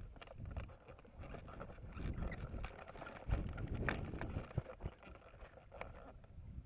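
Close rustling, scuffing and clicking over a low rumble, from a player moving through the game area with a body-worn microphone. Scattered sharp knocks throughout, the loudest about three to four seconds in.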